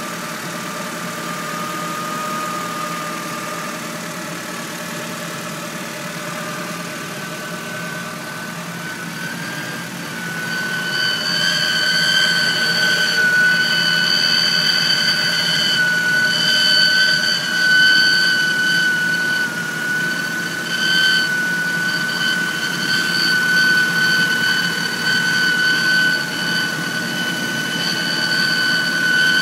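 1997 Honda Civic DX four-cylinder engine running with a steady high-pitched whine over it. The whine steps up slightly in pitch about a quarter of the way through, then grows louder and shriller, into a screaming tone, from about a third of the way in. The owner takes the whine for a failing timing belt.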